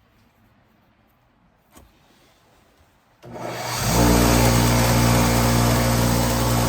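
A motor starts about three seconds in and runs loudly and steadily at one pitch, after a faint click of handling.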